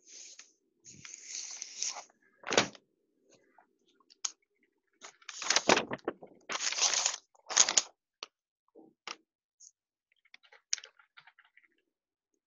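Irregular rustles, knocks and thumps: a low thump a few seconds in, a louder cluster of rustling bursts around the middle, then fainter scattered clicks near the end.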